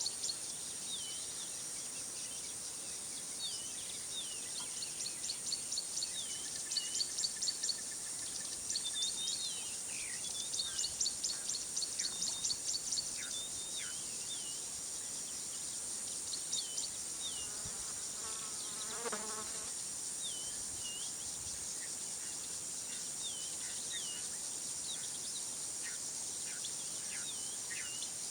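Bush ambience: a steady high insect drone with repeated bursts of fast chirping and short falling bird calls. About 19 seconds in, a single lower call of several stacked tones is heard.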